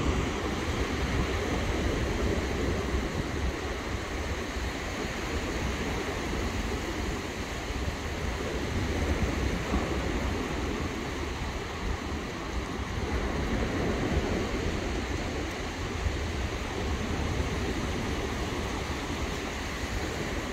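Ocean surf washing on the shore, with wind buffeting the microphone in a steady low rumble.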